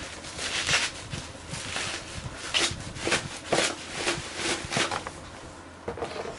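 Plastic bubble wrap crinkling and crackling irregularly as a cardboard box is pulled out of it by hand.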